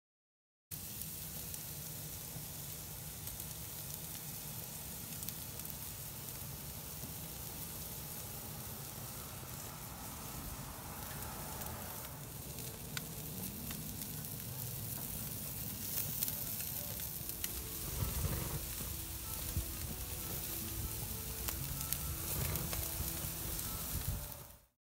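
Steaks sizzling as they sear on the grate over lump charcoal and wood chunks in a grill's solid fuel insert. The sizzle begins about a second in, grows louder with sharper pops and crackles in the second half, and cuts off abruptly near the end.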